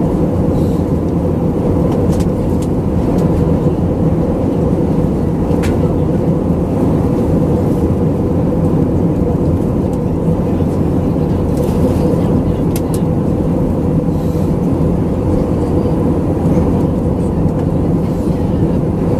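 Steady cabin drone of an Airbus A319-112 in descent: its CFM56 turbofan engines and the airflow over the fuselage running evenly, with a steady hum under the rush and a few faint ticks.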